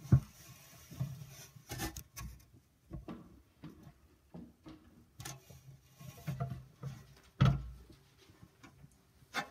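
Scattered footsteps and wooden knocks as a wooden cross is carried and stood in place, with one heavier low thump about seven and a half seconds in.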